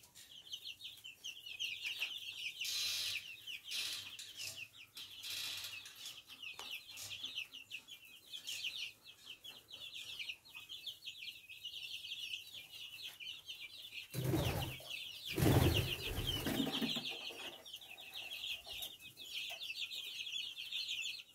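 Chicken chicks peeping in a dense chorus of rapid, high peeps that never stop. About two-thirds of the way through there is a few-second flurry of louder thumps and rustling.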